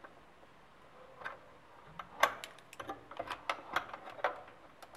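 Irregular clicks and small knocks of banana-plug leads being handled, pulled from and pushed into the sockets of a plastic circuit board. A single click comes about a second in, then they come thicker from about two seconds.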